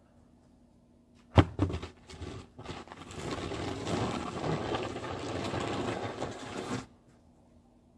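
Snow shovel blade knocked down hard on the pavement once, with a few lighter knocks, then scraped along the ground pushing snow for about four seconds before stopping suddenly.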